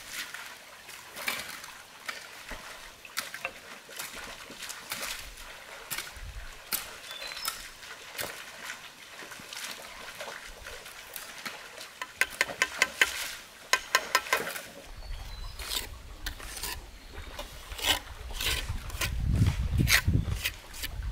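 A steel trowel scraping wet mortar and tapping bricks into place, giving scattered sharp clicks and scrapes with a quick run of taps about twelve seconds in. From about fifteen seconds in a low rumble joins, strongest near the end.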